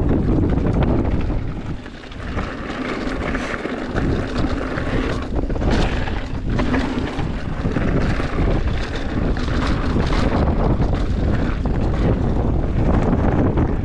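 Wind rushing over the microphone of a camera on a moving mountain bike, with the rumble of the bike over the trail and a few short knocks. The rush briefly drops about two seconds in.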